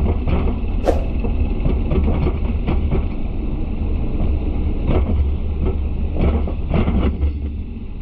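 John Deere 2210 compact tractor's diesel engine running steadily with a deep rumble, with scattered short knocks and clatters.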